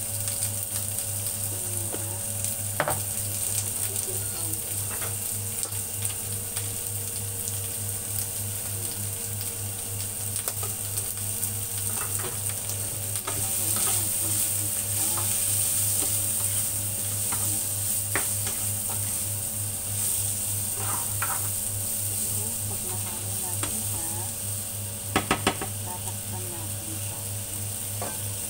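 Mixed vegetables sizzling in a nonstick frying pan while a spatula stirs and tosses them, with occasional knocks of the spatula against the pan and a quick run of taps near the end. A steady low hum runs underneath.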